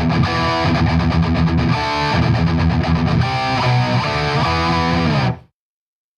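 Background rock music with distorted electric guitar, which cuts off suddenly near the end and leaves silence.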